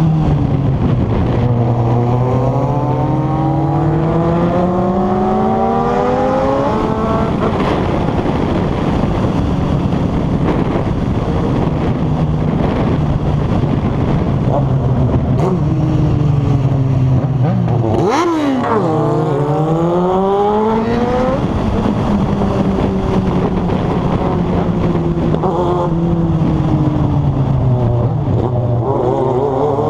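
Inline-four sport motorcycle engines under acceleration, pitch climbing in long pulls about a second in, again at about 18 seconds and near the end, and holding steady at cruising speed in between. Wind rush runs underneath.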